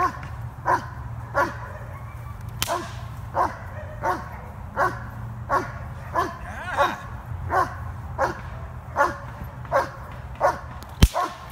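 German Shepherd puppy barking steadily at a decoy during bite-work agitation, about three barks every two seconds, each bark dropping in pitch. Two sharp cracks cut through the barking, one about two and a half seconds in and a louder one near the end.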